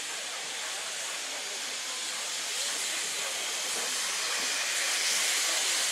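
Steam locomotive 47406, an LMS Fowler 3F 'Jinty' tank engine, hissing steam as it draws nearer, the hiss growing steadily louder.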